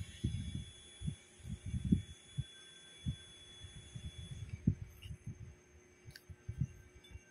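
Irregular low thumps and rumbling, several a second, like handling noise rubbing on a phone microphone, over a faint steady high whine that fades out about two-thirds of the way through.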